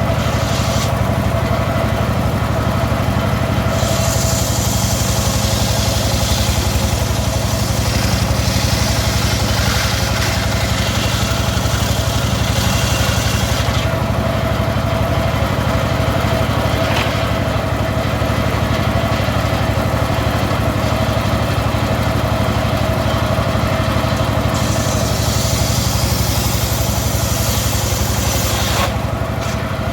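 Home-built, engine-driven circular saw running steadily as it slices teak wood. A louder high hiss joins in for long stretches, from about 4 to 14 seconds and again from about 25 to 29 seconds, as the blade is in the cut.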